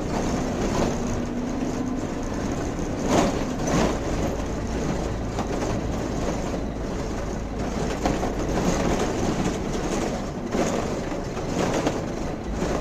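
Mercedes-Benz O405N city bus running at low speed, heard from the driver's cab: a steady low rumble of engine and road with body rattles. There are two sharp knocks about three and four seconds in.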